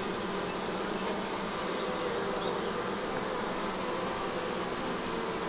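Honeybees buzzing steadily, a continuous even hum from the opened colony.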